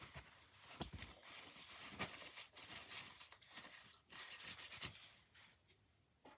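Near silence, with faint scattered taps and rustles.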